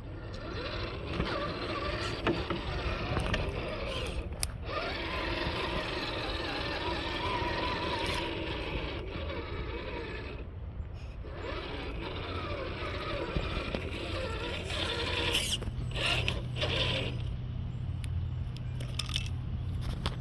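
Redcat Gen 8 Scout II RC crawler's 550-size brushed electric motor and gears whining as the truck drives, the pitch rising and falling with the throttle. The sound briefly stops twice, around 4 and 10 seconds in.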